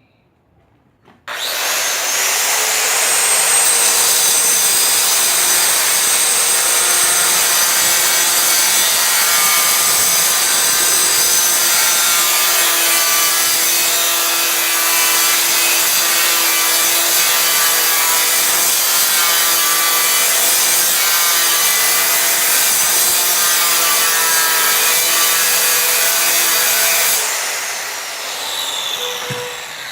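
A handheld electric disc cutter starts about a second in and runs steadily, cutting through stone without bogging down. Near the end it is switched off, and its pitch falls as the disc winds down.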